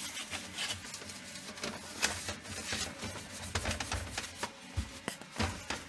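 Irregular light clicks, taps and rustles of plastic fridge interior parts being handled and fitted back into place.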